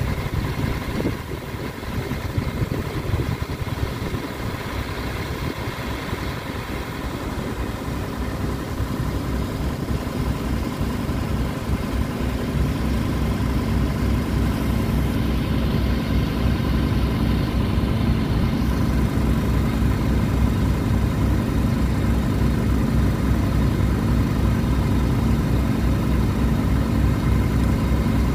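Fuso boom truck's diesel engine idling steadily, growing louder toward the end.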